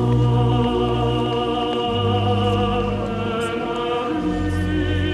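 Music: sustained choral or operatic singing with vibrato over held low notes. The low notes change about two seconds in and again about four seconds in.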